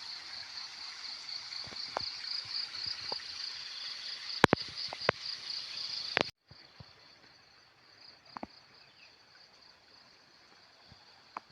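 Steady, high-pitched chorus of insects over the hiss of running ditch water, with a few sharp clicks. About six seconds in the sound drops abruptly, and the insects go on more faintly after that.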